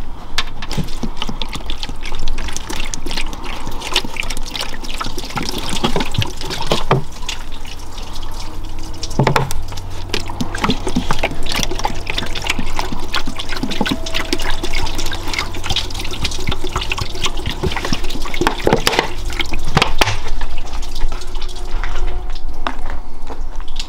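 Water poured from a large plastic bottle splashing into a car's cowl area below the windscreen, as a test of where the water drains or leaks into the cabin.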